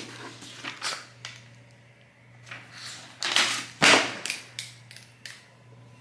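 Irregular sharp knocks and clatter, about ten in a few seconds, the loudest just before four seconds in.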